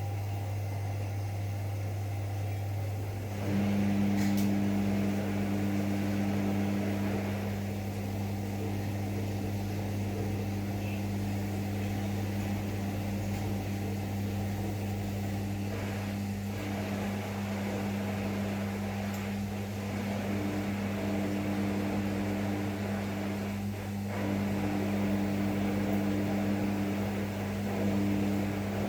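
Rex-Electrolux RJ 7160 TA washing machine running mid-cycle. A steady hum underlies it, and about three and a half seconds in a steady motor or pump hum starts and holds, with a few brief dropouts, over the noise of water moving.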